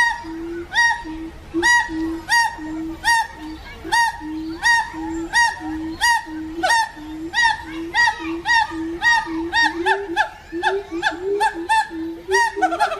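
Monkeys calling in a long run of short, repeated rising-and-falling calls, one every second or less, coming faster in the second half, with a lower steady note repeating alongside.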